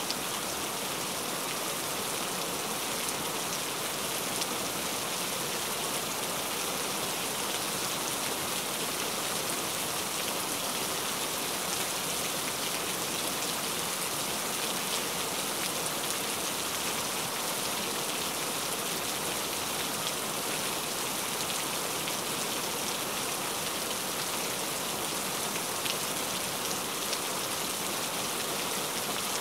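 Heavy rain falling in a steady, even hiss, with scattered faint ticks of single drops.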